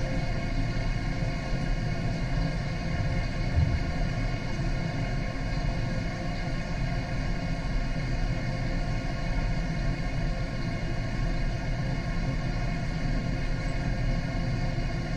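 Steady low mechanical rumble and hum of a fish-farming tank's water circulation, heard through an underwater webcam, with several steady tones over it and a brief low thump about three and a half seconds in.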